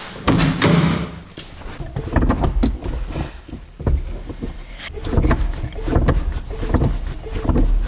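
A car's hydraulic clutch being pumped up after topping up the fluid: irregular clicks and knocks of the pedal and linkage over a low rumble. The clutch master cylinder is leaking.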